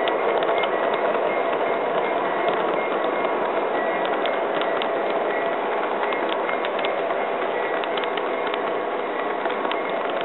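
Model freight cars rolling steadily past on a model railroad track: a continuous running noise of the wheels, with scattered light clicks as they pass over rail joints.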